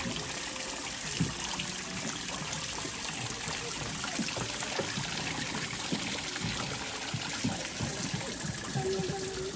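Water running steadily from a decorative artificial-rock waterfall into its pool, an even splashing trickle.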